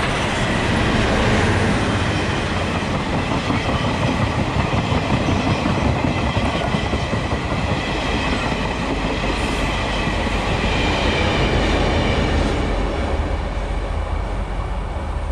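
Passenger train hauled by the CT273 steam locomotive rolling past at close range, its coach wheels clicking over the rail joints. The sound eases slightly near the end as the last coaches move away.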